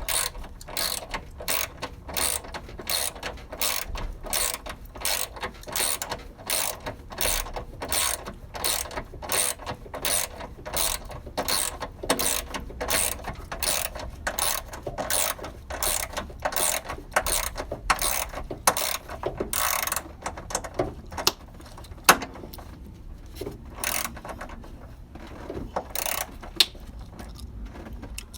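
Ratchet wrench clicking in steady back-and-forth strokes, about two to three clicks a second, working a bolt. After about 20 seconds the clicking becomes sparse and irregular.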